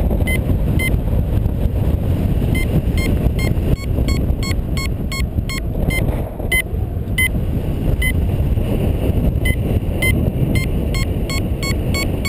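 Wind rushing over the microphone in flight, with a paragliding variometer beeping its climb tone: short high beeps repeating several times a second, a sign the glider is rising in lift.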